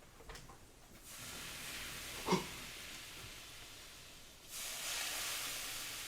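Food sizzling in a hot frying pan: a steady hiss that starts suddenly about a second in and grows louder in a second surge near the end. A brief squeak sounds just past two seconds.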